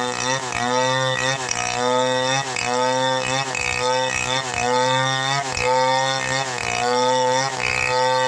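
Two-stroke chainsaw running under load while cutting a log into boards, its engine pitch dipping and recovering about once a second as the chain bites into the wood.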